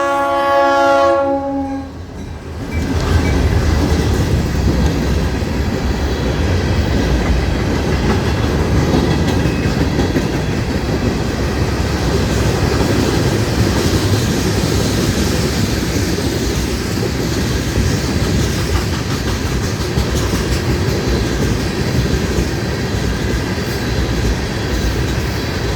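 Florida East Coast Railway freight locomotive's horn sounds a blast that ends about two seconds in; then the freight train passes close by, a loud steady rumble of locomotives and rolling freight cars on the rails.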